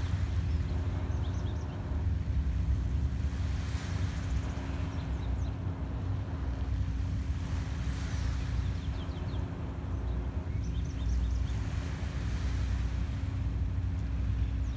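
A tugboat's engine drones steadily across the water as a low rumble with a steady hum. Small waves wash on the shore every few seconds, and brief high chirps come through now and then.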